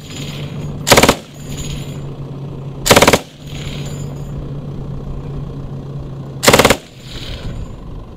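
Vehicle-mounted machine gun firing three short bursts of a few rounds each, about a second in, about three seconds in, and near the end, with a low steady hum between the bursts.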